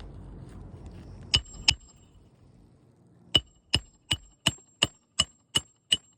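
A hammer driving roofing nails during shingle repair. Two blows, a short pause, then a quick even run of eight blows about three a second, each with a short metallic ring.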